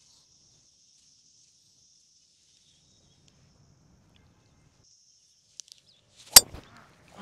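A 3-wood striking a golf ball cleanly off the fairway: one sharp crack about six seconds in, the loudest sound.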